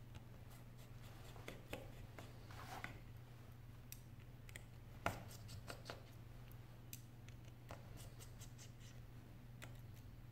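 Light clicks and taps of a precision screwdriver, tweezers and small metal parts on an opened iPhone 6s and its replacement screen, scattered and irregular, with one sharper click about five seconds in. A faint low hum runs underneath.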